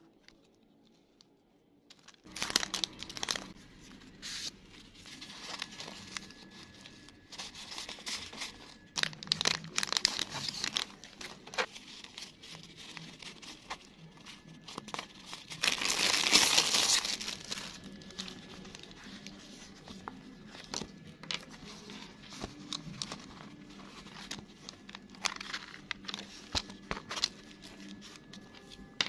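Crinkling and rustling of packaging and paper craft supplies being handled, starting about two seconds in, with scattered clicks and taps. A longer, louder crinkle comes about sixteen seconds in.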